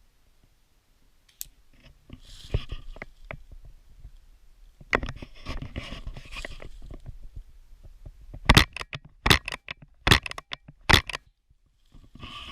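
Rustling movement, then four sharp cracks a little under a second apart, typical of an airsoft pistol firing in quick succession.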